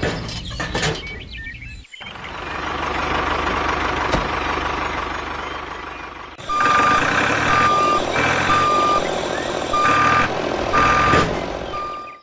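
A truck's reversing alarm beeping over its running engine. The steady engine noise comes first; the repeated single-pitch beeps start about halfway through.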